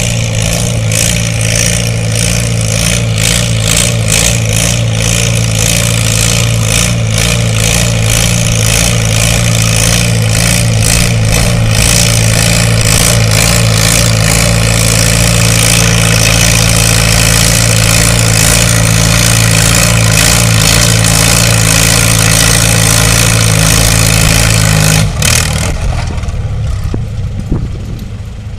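International Harvester Farmall tractor engine pulling a weight-transfer sled at full throttle, a loud, steady drone. About 25 seconds in the engine is throttled back and the drone drops away suddenly as the pull ends.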